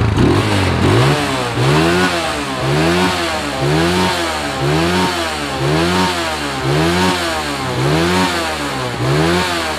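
Yamaha Scorpio Z's 225 cc single-cylinder four-stroke engine revved in short throttle blips, rising and falling about once a second, nine times in a row.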